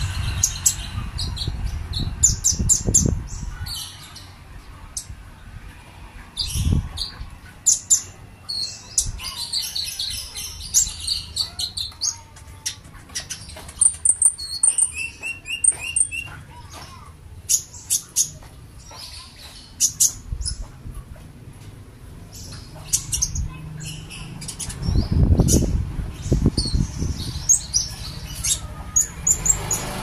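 Caged konin (a small sunbird) giving quick high chirps and twitters, with a fast run of high notes about halfway through. Low rumbling thumps come near the start and about five seconds from the end.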